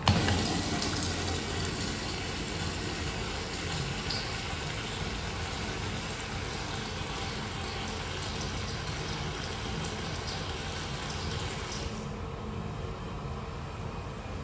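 A restroom fixture flushing: water rushes in suddenly and loudly, then runs on as a steady rush for about twelve seconds before its high hiss cuts off, leaving a lower water sound.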